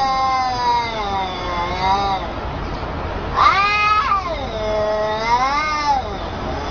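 Cat yowling at another cat in a face-to-face standoff: one long, wavering yowl, then a second that starts with a sharp rise about three and a half seconds in and warbles up and down until near the end.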